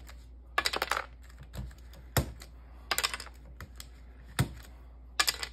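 Apple IIgs keyboard keycaps being prised off their stems with a plastic pry tool: sharp plastic clicks and snaps, some single and some in short rattling clusters, about one every second.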